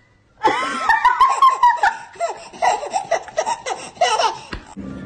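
Loud, high-pitched laughter in a run of bursts, starting about half a second in and breaking off shortly before the end.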